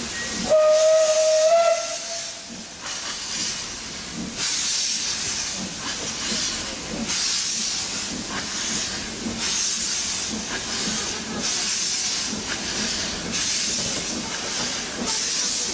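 Narrow-gauge steam locomotive giving one short whistle about half a second in, a single note that lifts slightly at its end. It is followed by slow, regular chuffs of steam exhaust with hiss as the locomotive works under steam.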